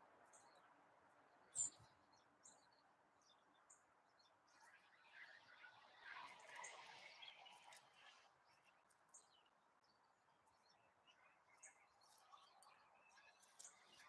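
Faint, scattered high chirps and tweets of small songbirds, with one sharp click about a second and a half in.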